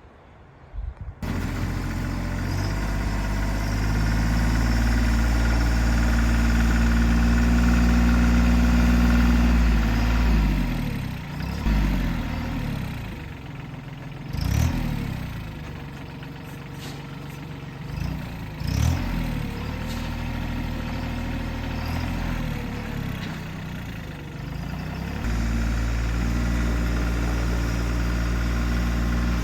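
An engine starts about a second in and runs steadily. Its speed then dips and rises several times through the middle before it settles back to a steady run near the end.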